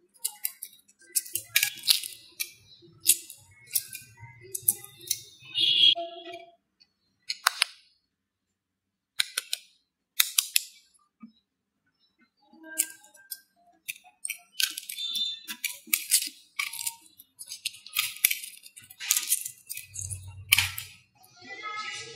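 Eggshell crackling as fingers peel the shell off a hard-boiled egg: irregular runs of sharp little crackles and clicks with short pauses between.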